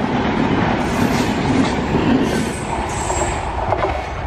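Express train coaches passing close at speed: a steady rumble and clatter of steel wheels on the rails, with a brief thin high squeal about three seconds in.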